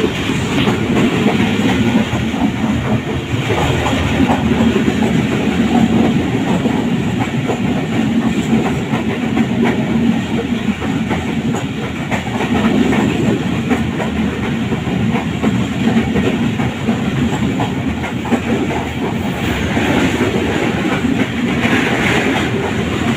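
Moving passenger train, its wheels clattering steadily over the rails.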